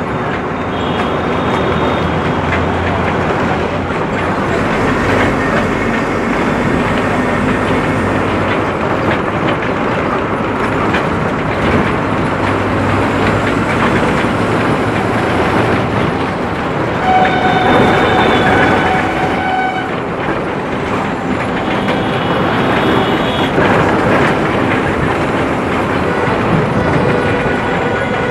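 Bus engine running and the bus body rattling as it drives along a road, heard from inside the cabin. Vehicle horns sound several times, the longest blast about two-thirds of the way through.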